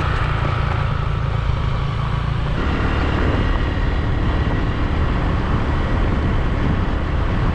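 Small motorbike riding along a dirt road: steady engine and road noise with heavy wind rumble on the action camera's microphone. The sound shifts a little over two seconds in.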